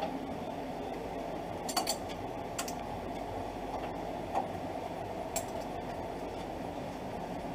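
A handful of short, light metallic clicks and clinks of hand tools and fasteners being worked on a car's radiator support, over steady background noise.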